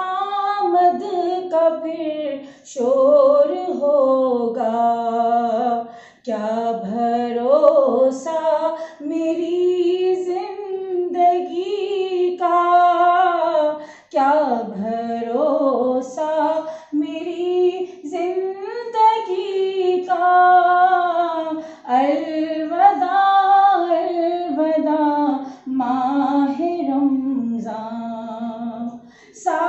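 A woman singing solo without accompaniment, in long held, ornamented phrases with short breaks for breath between them.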